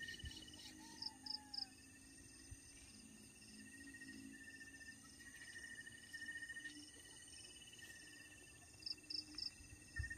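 Night insects, crickets, trilling steadily at several high pitches. A short, sharp three-note chirp sounds twice, about a second in and near the end. A faint low hum lies underneath.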